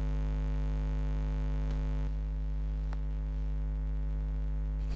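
Steady electrical mains hum picked up by the recording setup, with one faint click about three seconds in.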